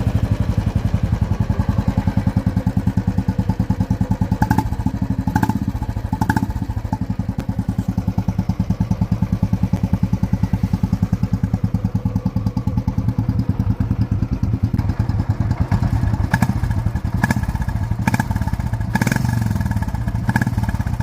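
Royal Enfield Bullet single-cylinder engine idling through an aftermarket VW Indore silencer, a steady pulsing exhaust beat, with a few brief throttle blips.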